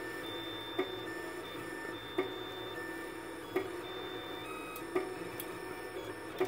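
Monoprice Select Mini V2 3D printer running by itself: its stepper motors whine in short steady tones that switch on and off as the print head jerks along the rail, over the steady hum of the hotend fan, with a sharp click about every one and a half seconds. The erratic moves are too sporadic to be calibration, which the owner takes for the version 2's mechanical defect.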